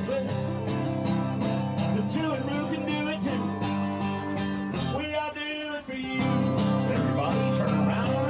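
Upbeat dance music playing, briefly dipping about five seconds in and then coming back louder.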